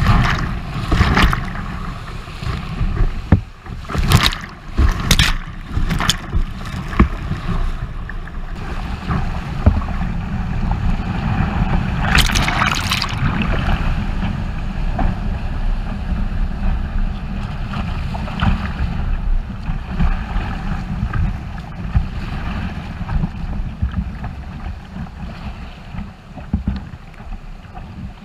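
Whitewater rapids rushing around a kayak's bow-mounted camera, a steady deep rumble of water and wind on the microphone. Water splashes hit the camera several times in the first eight seconds and again around twelve seconds in as the kayak runs through the waves and down a ledge drop.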